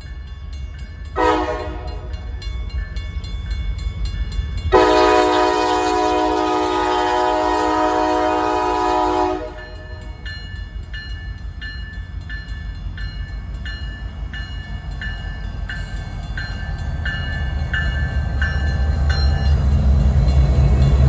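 Norfolk Southern freight diesel locomotive sounding its multi-chime air horn: a short blast about a second in, then a long loud blast of about four and a half seconds. A railroad crossing bell rings steadily at about two strokes a second, and the low rumble of the diesel engines grows louder near the end as the locomotives pass close.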